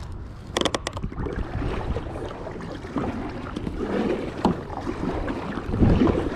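Sun Dolphin Journey 10 plastic kayak on moving water: water lapping and sloshing at the hull with wind rumbling on the microphone, and a couple of sharp knocks just under a second in.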